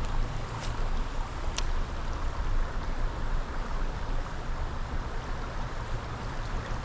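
Steady rushing of river water around a wader's legs, with a fluctuating low rumble underneath. Two short clicks stand out about half a second and a second and a half in.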